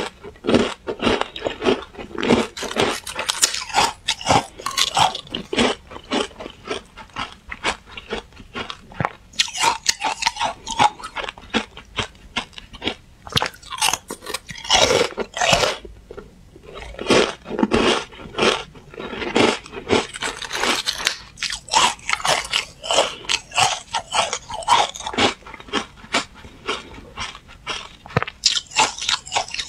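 Carbonated ice being bitten and chewed close to the microphone: dense runs of sharp, crisp crunches with a couple of short lulls between mouthfuls.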